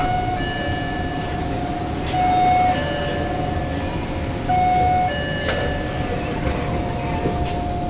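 Electronic chime tones inside an SMRT C151 train carriage. A louder low tone alternates with a higher two-note tone, and the pattern repeats three times about every two and a half seconds before stopping, over the carriage's steady hum and rumble.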